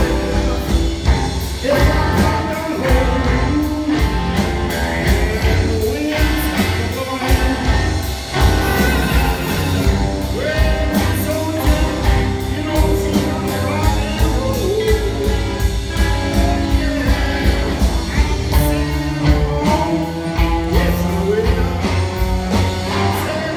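Live blues band playing: a man singing over electric guitar, upright bass and drums, heard through a PA in a large hall.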